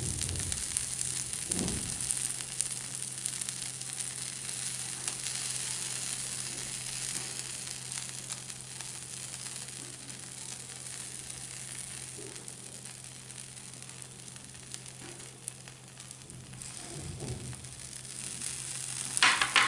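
Butter sizzling on a hot non-stick tava under bread pizzas cooking on low flame: a steady hiss that slowly grows quieter, with a few soft handling thumps.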